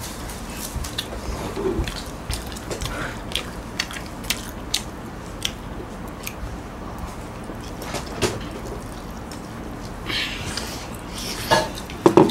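People eating fried chicken close to the microphone: scattered wet chewing and mouth clicks with a few light knocks, unevenly spaced throughout.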